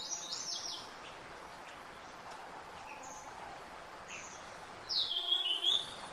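Songbirds calling in forest: a quick run of high chirps at the start, a few faint short calls in the middle, and a louder call about five seconds in that dips and rises in pitch.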